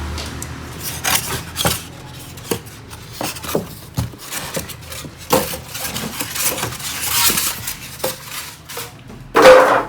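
Handling noise from unpacking a printer box: small items and packaging knocked and clinked together, with plastic wrapping rustling and a loud knock or rustle near the end.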